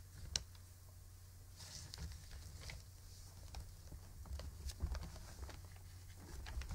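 Faint handling noises as the pages of a prayer book are turned: scattered light clicks and a brief papery rustle, then a few soft thumps, over a low steady hum.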